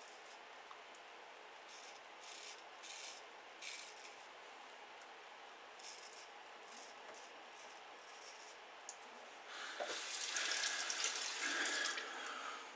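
Turkish shavette straight razor with a half blade scraping through lathered stubble in short, faint strokes. About ten seconds in, a tap runs into the sink for about two seconds.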